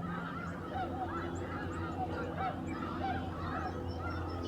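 A large flock of wild geese calling, many overlapping high honks at once, over a steady low hum.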